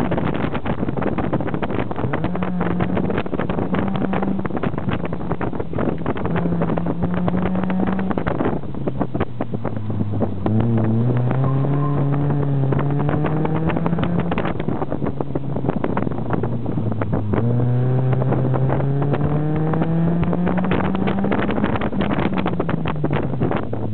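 BMW Z3 1.9's four-cylinder engine heard from inside the open cockpit during an autocross run, the revs climbing and dropping again and again as the car accelerates and slows between cones. Wind buffets the microphone throughout.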